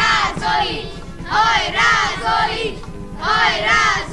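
Music: a bright melody in short, repeating phrases of rising and falling notes.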